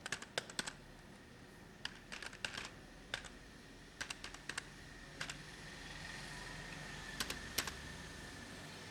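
Computer keyboard being typed on in short, irregular bursts of key clicks with brief pauses between them, the last couple of keystrokes near the end the loudest. A faint steady high whine runs underneath from about two seconds in.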